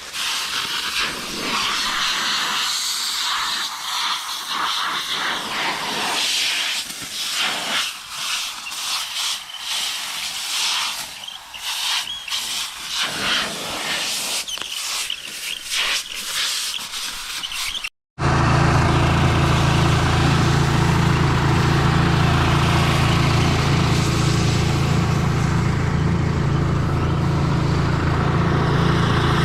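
Compressed air hissing in uneven blasts as an air filter is blown out. After a sudden cut, a farm machine's engine running steadily.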